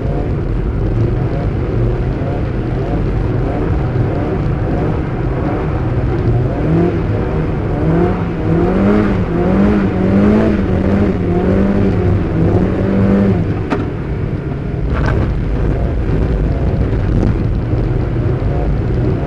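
Mazda MX-5 (Eunos Roadster) four-cylinder engine heard from inside the cabin while drifting, its revs rising and falling over and over as the throttle is worked. Two sharp clicks come about three-quarters of the way through.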